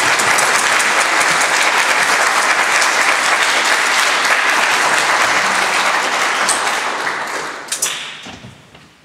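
Audience applauding steadily, greeting the conductor as he takes the stage; the clapping thins out and dies away near the end.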